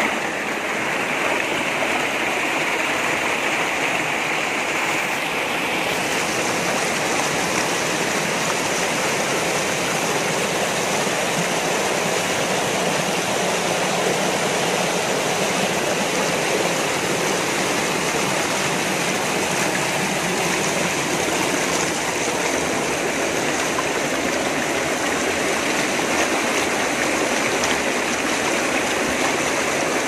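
Rocky mountain river rushing over boulders in small white-water cascades: a steady, full rush of water.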